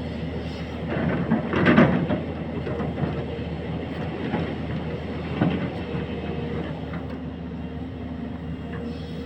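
Excavator running steadily under load, with bursts of metallic clanking and scraping; the loudest comes about two seconds in, another in the middle.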